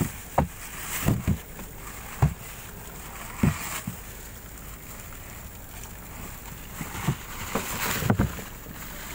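Chunks of dry ice knocking and thumping irregularly as they are broken and packed by hand into a plastic-lined wooden box around a Thordon bushing to shrink it. Plastic sheeting rustles under the knocks.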